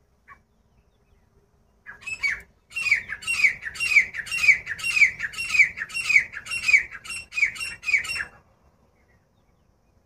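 Grey francolin calling: a loud series of about a dozen falling notes, roughly two a second, coming closer together near the end before it stops.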